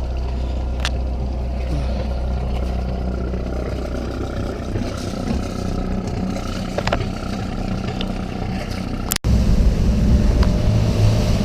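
Boat engine running steadily with a low hum. About nine seconds in, the sound breaks off for an instant and comes back louder, as a rougher rumble with rushing noise.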